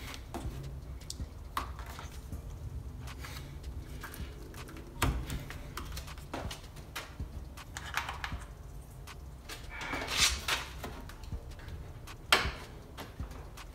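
Irregular plastic clicks and knocks as a 2017 Dodge Journey's front grille is handled and pressed into its clip tabs, with a few louder knocks spread through.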